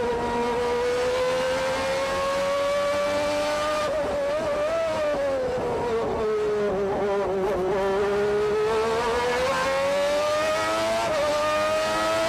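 McLaren-Honda 3.5-litre V12 Formula One engine heard from onboard the car, running at high revs. Its pitch falls from about four seconds in to a low point around seven seconds as the car slows for a corner, then climbs steadily again as it accelerates out.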